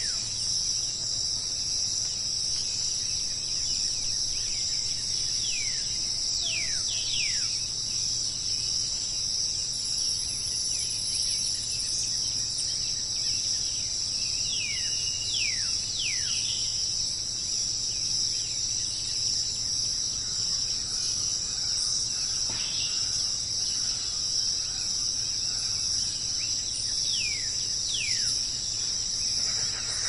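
Steady chorus of crickets and other insects, a high continuous trill, with a bird giving short falling whistles in twos and threes now and then.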